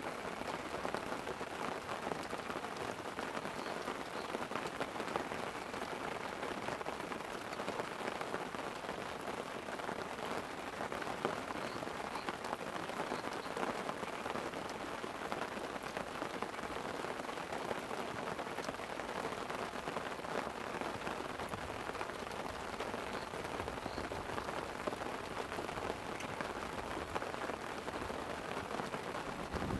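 Light rain falling steadily on a tent, a dense patter of small drops.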